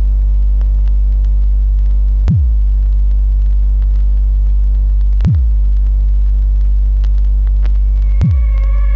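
Loud, low electronic drone from a horror film score, with a deep boom that drops in pitch about every three seconds. A sustained synth chord fades in near the end.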